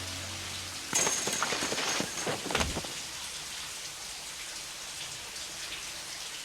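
Shower water running steadily in a film soundtrack. About a second in comes a short burst of sharp rattling clicks, and a dull thud follows a little later. A low held note fades out in the first second.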